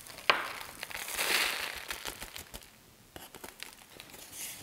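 Prills microbeads being poured from a small jar onto a glued card and shaken off over a paper coffee filter. A sharp click near the start, a rustling pour of tiny beads about a second in, then scattered light clicks and paper crinkles as the card is handled.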